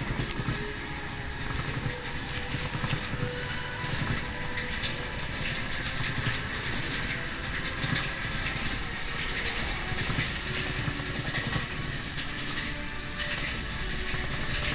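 Space Mountain roller coaster train running along its track in the dark: a steady low rumble with continual rattling and clicking of the wheels and cars.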